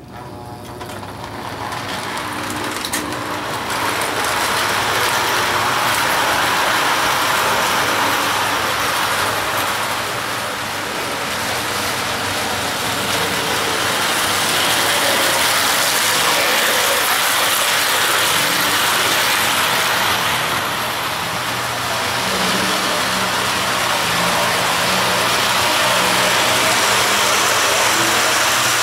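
Toy rapid-transit train powered by a Marx double reduction motor, running on the track: a steady electric-motor whir with wheels rattling over the rails. It fades in over the first few seconds, then swells and eases as the train moves past.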